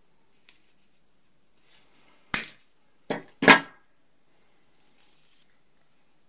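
Pliers snipping a thin metal pin to shorten it, one sharp snap a little over two seconds in, followed by two shorter knocks as the pliers are put down on the table.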